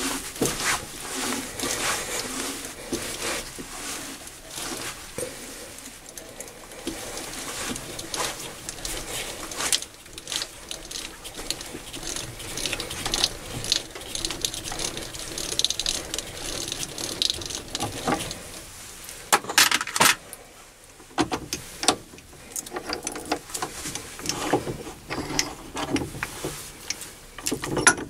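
A 1/4 inch BSP high-speed-steel die turned by hand in a die holder on a lathe, cutting a thread. Irregular metallic clicks, scrapes and knocks come as the holder is worked round with a bar, with a few louder knocks about two-thirds of the way through.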